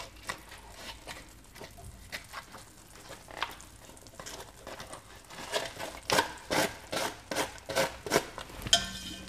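Butter wrapper crinkling as it is peeled open and the butter is scraped off it into a pan with a metal utensil: quick irregular crackles, getting louder and more frequent about halfway through.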